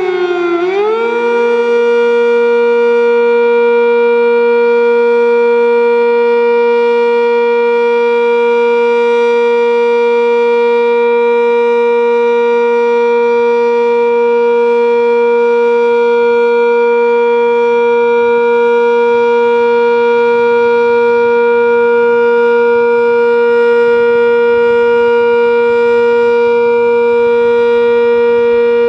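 Sentry 10V outdoor warning siren sounding a steady alert signal: its pitch dips briefly just after the start, climbs back within about a second, then holds one steady tone.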